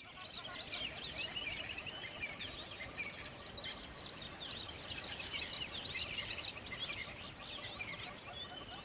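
Many songbirds chirping and calling at once in quick, overlapping high notes, with a lower short note repeating several times a second, over a soft steady rush of flowing water.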